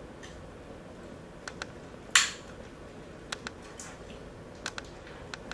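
A utensil stirring thick batter in a tall container, clicking against its side in quick pairs every second or so, with one louder scrape about two seconds in.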